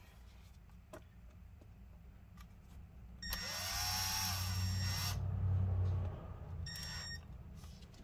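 A small power drill starts about three seconds in, rising in pitch as it spins up, and runs for about three seconds before fading out. It is drilling into the laptop's metal keyboard plate, where the bit keeps grabbing in the metal.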